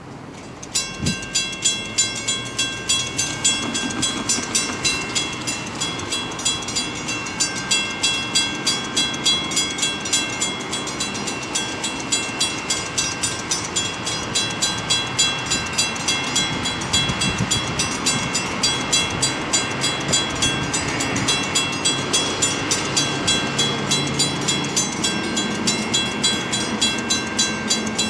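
Railroad grade-crossing warning bell starting up about a second in and ringing in a fast, steady, unbroken repeat, signalling an approaching train.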